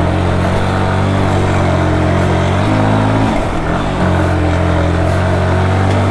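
Motorcycle engine running hard at steady revs while climbing a steep, rough trail. The revs dip briefly about three seconds in, then pick back up.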